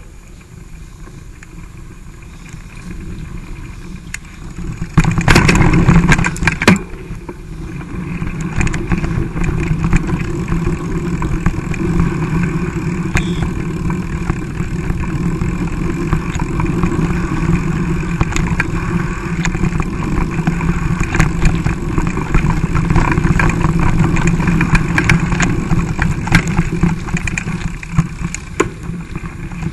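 Wind buffeting the microphone of a camera riding on a mountain bike, mixed with the bike rattling and jolting over a rough dirt trail. There is a louder, harsher stretch of bumps about five to seven seconds in.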